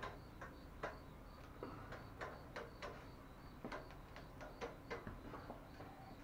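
Light, irregular clicks and taps from a bicycle being handled and turned back upright after its rear wheel has been fitted, about a dozen in all.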